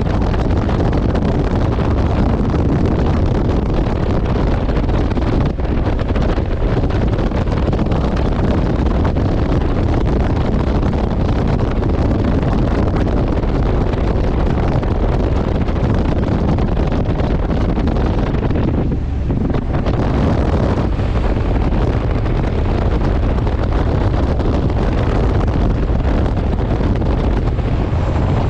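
Wind rushing over an action-camera microphone on a motorcycle at road speed, a loud steady rush. It eases briefly about two-thirds of the way in.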